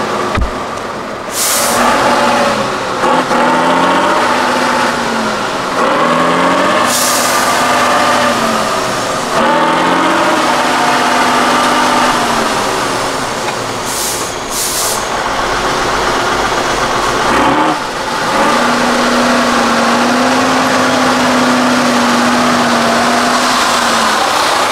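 Tatra 813 8x8 trial truck's diesel engine revving up and down again and again under load in the mud, with several short hisses of air from the brakes. Near the end it holds steady high revs for several seconds as the truck climbs.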